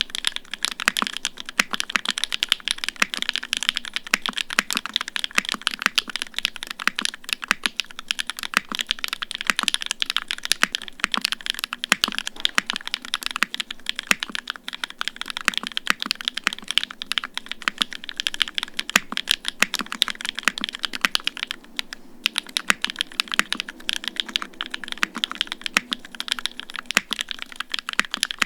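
Fast, continuous typing on a custom mechanical keyboard fitted with hand-lubed SW x Gateron Onyx UHMWPE linear switches on an FR4 plate with no foam, under GMK keycaps. It is a dense run of keystroke clacks, with a brief pause about three quarters of the way through.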